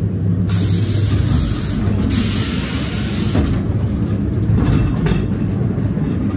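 Ghost train ride car running along its track with a steady low rumble. A loud hiss cuts in about half a second in, breaks briefly near two seconds, and stops about three and a half seconds in.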